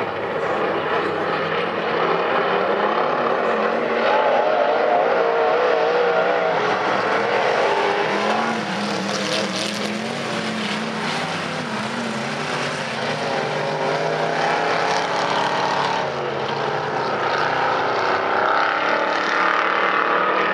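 A pack of dirt-track modified race cars at full race speed, several engines revving together and wavering up and down in pitch as they lap the oval. The sound swells as the cars come through the near turn, eases, then swells again near the end.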